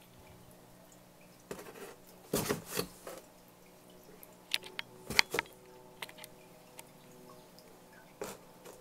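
Scattered short scrapes and taps on a cardboard box as a cat shifts about inside it, a few seconds apart, the loudest about halfway through, over a faint steady hum.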